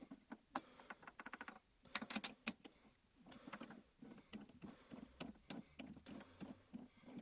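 Light, irregular clicks and taps, with a quick rattling run of about ten clicks a little after a second in, amid faint rustling.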